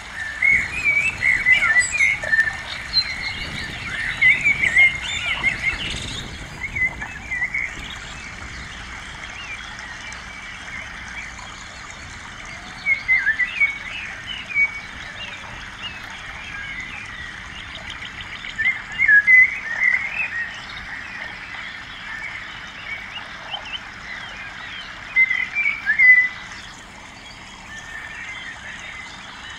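Small birds chirping in short runs of quick chirps several times over, against a steady background hiss.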